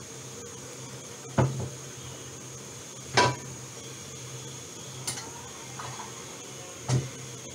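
Glass lid on a covered, simmering pan knocking against the pan's rim four times, roughly every two seconds; the second knock is the loudest and rings briefly. A steady low hum runs underneath.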